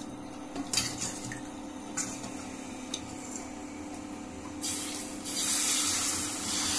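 Thin rava dosa batter poured from a ladle onto a hot dosa griddle, hissing and sizzling as it hits the pan; the hiss starts about two-thirds of the way in and gets louder. Before it come a few light clicks.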